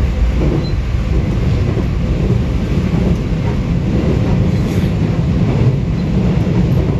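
Seoul Subway Line 4 train running through a tunnel, heard from inside the passenger car as a loud, steady low rumble.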